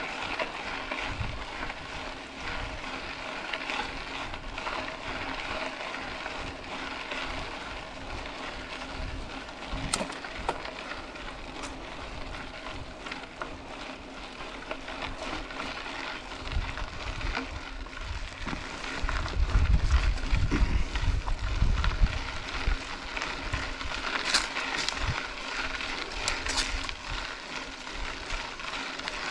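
Mountain bike rolling along a dirt road: steady tyre and drivetrain noise with a few sharp clicks and rattles. A louder low rumble comes about two-thirds of the way in.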